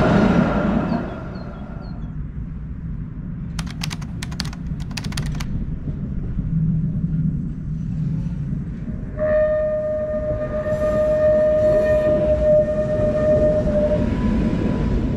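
Tatra T3 trams running: one passes close with a whine from its running gear, then a run of sharp clicks a few seconds in, and a second tram approaching and passing with a steady high whine that sets in about nine seconds in and stops about five seconds later, over a constant low rumble.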